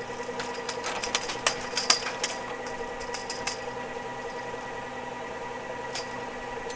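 Ski lift running: a steady motor hum with a held whine, overlaid by a run of rattling clicks and clanks in the first half, loudest about two seconds in, and one more click near the end.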